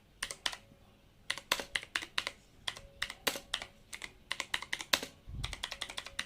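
Typing on a mechanical keyboard with clicky blue switches: irregular bursts of sharp key clicks, with a short low thump a little after five seconds.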